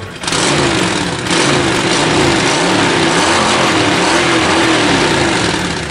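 Honda VT1300 Fury's 52-degree V-twin engine revved hard and held up, heard close at the chrome mufflers. It comes in suddenly about a quarter second in, eases briefly near one second, then stays loud until just before the end.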